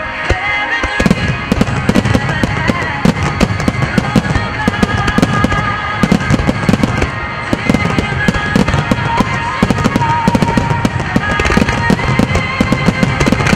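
A starmine fireworks barrage: many shells bursting in rapid succession, a dense run of bangs starting about a second in. Music set to the display plays throughout.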